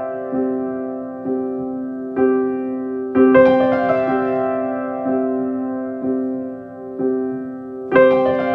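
Slow, gentle piano music: notes and chords struck about once a second and left to ring and fade, with a fuller chord about three seconds in and another near the end.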